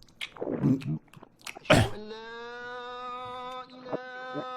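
A man snoring, with rough rattling breaths and a loud snort, then a long drawn-out vocal note held at a steady pitch that starts to waver near the end.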